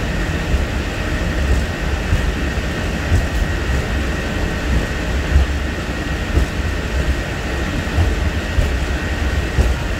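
Hong Kong Peak Tram car, a cable-hauled funicular, running on its track: a steady heavy rumble with a thin high whine held throughout and a few light knocks.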